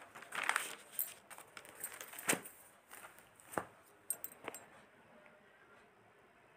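A scatter of sharp clicks and knocks, the strongest a little past two seconds in, then quiet room tone from about five seconds in.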